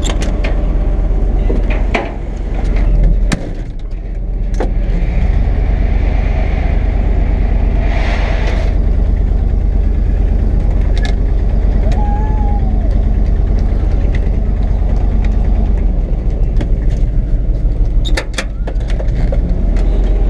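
Flatbed tow truck's engine running as the truck is driven a short way, with a rise in engine sound about two seconds in. Sharp door clunks come near the start and again near the end.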